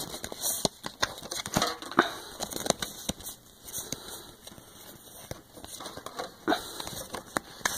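Trading cards and a foil booster pack wrapper being handled: scattered light clicks, rustles and crinkles of card stock and foil, a little louder about two seconds in and again after six seconds.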